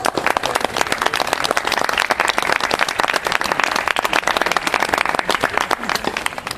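Applause from a small group of people, many hands clapping quickly and unevenly.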